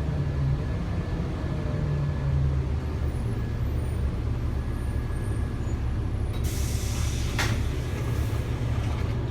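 Bus engine running with a steady low rumble, and about six and a half seconds in a short hiss of air-brake release.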